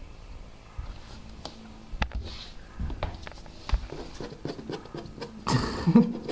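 Scattered knocks and bumps, then rubbing and scraping against a cardboard box with a tabby kitten inside, loudest near the end.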